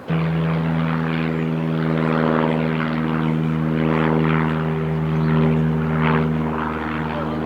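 Aircraft engines droning steadily, a low even hum that holds throughout.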